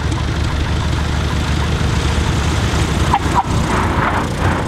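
Single-engine light aircraft's piston engine running at taxi power as a low-wing plane rolls past, a steady low drone.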